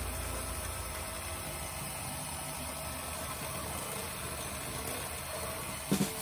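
Moulinex electric hand mixer running steadily, its beaters churning a chocolate mixture in a glass bowl, with two brief knocks near the end.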